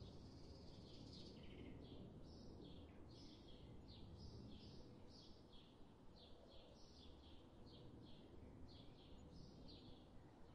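Near silence: faint low room noise with a steady run of quick, high bird chirps, about two or three a second.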